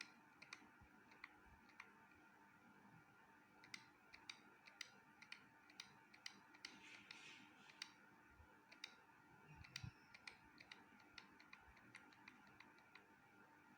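Near silence with faint, irregular small clicks, a few a second, over a low steady hum.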